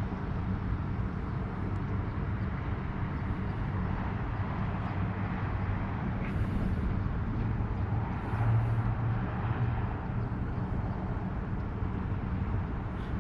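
Steady low engine rumble, as of an idling vehicle or locomotive, swelling slightly about eight seconds in.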